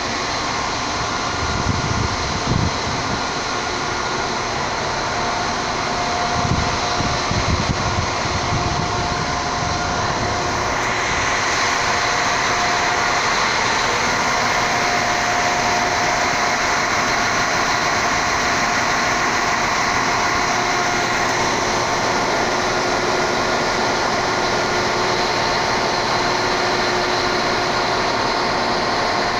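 A train running on the rails: a steady rumble with a few low thuds in the first ten seconds. About ten seconds in it changes to the brighter, steady engine and rolling noise of a class 711 diesel multiple unit close by, with faint steady whines.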